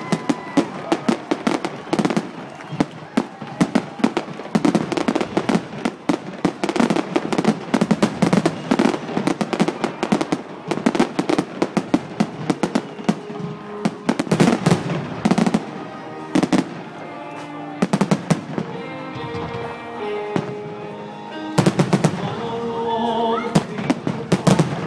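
Fireworks display: a dense run of aerial shell bangs and crackling, thinning out about two-thirds through.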